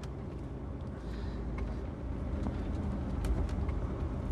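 Inside the cab of a 410-horsepower 4x2 lorry running empty up a hill: a steady low engine and road drone that slowly grows a little louder, with a few faint clicks and ticks.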